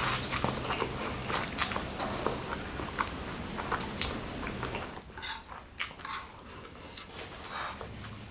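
Close-miked eating of spicy noodles and egg martabak: biting and chewing with dense, wet crackling clicks. About five seconds in, the sounds turn quieter and duller.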